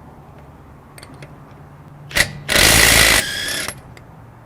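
Klein BAT20-CW 1/2-inch brushless compact impact wrench hammering a lug nut: a short blip of the trigger, then one quick burst of hammering under a second long, with a brief quieter motor whine as it lets off.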